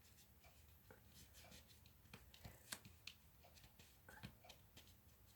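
Near silence with faint, scattered light clicks and taps of paper and card being handled while a paper leaf is glued down on a card.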